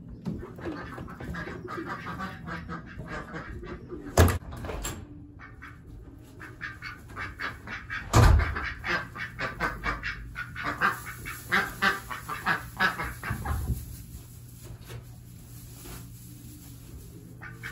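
Domestic ducks and chickens calling, with a fast run of short quacking calls through the middle. Two loud knocks cut in, about four and eight seconds in.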